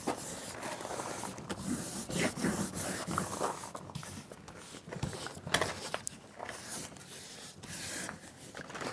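Hands rubbing and pressing foil-faced sound-deadening mat onto the underside of a stainless steel sink: faint irregular scrapes and crinkles.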